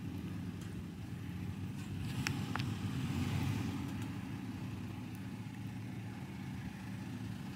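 Toyota Tacoma pickup's engine running steadily at low revs as the truck crawls slowly through a sandy, rocky wash, with a couple of faint ticks about two and a half seconds in.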